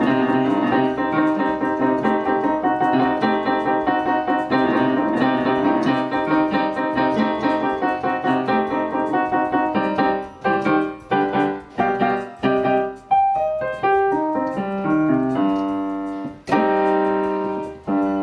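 Piano music. It starts with quick, running notes, then from about halfway it turns to slower, separate chords that each ring and fade.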